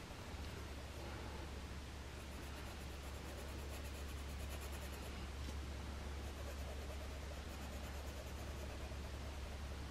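Colored pencil shading on a coloring-book page, a faint soft scratching of lead on paper. A steady low hum comes in just after the start and runs underneath.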